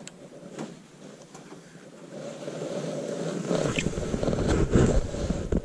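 Clothing rustle and low rumble on a chest-mounted camera's microphone as a jacket sleeve swings across it during a cast, growing loud about three and a half seconds in. A few light clicks come in the first second.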